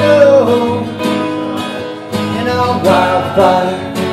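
Two acoustic guitars strummed together with male vocals, a live country duo. A held sung note slides down in pitch in the first half second, and singing comes back in near the end.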